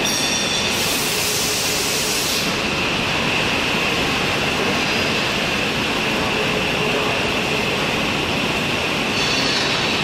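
Induction melting furnace running during a tilt pour of molten metal: a loud, steady industrial din with a continuous high whine over it, and a brief burst of hiss about a second in.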